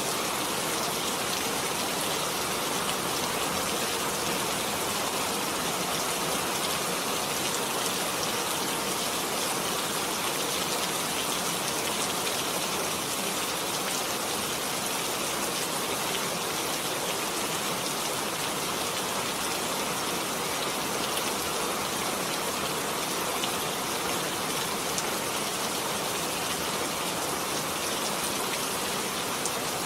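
Heavy rain falling steadily, a dense even hiss of drops with a few sharper drop ticks here and there.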